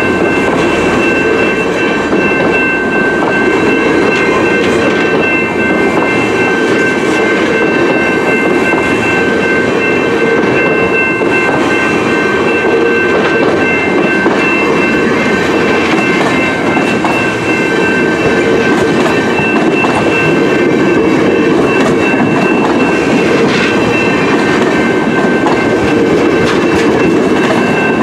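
VIA Rail passenger train of stainless-steel cars rolling past close by: a steady loud rumble of wheels on the rails, with a steady high-pitched ring over it.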